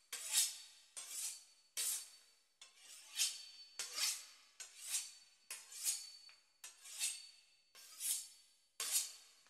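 A knife sawing back and forth through the crisp pastry crust of a beef Wellington: a dry rasping stroke about every three-quarters of a second.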